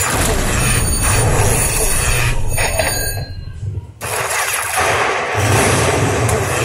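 Lightning Link 'Best Bet' slot machine playing its win rollup sound as the payout meter counts up at the end of a bonus, a loud electronic celebration with a regular low pulse. It drops away sharply about three seconds in and picks up again a second later.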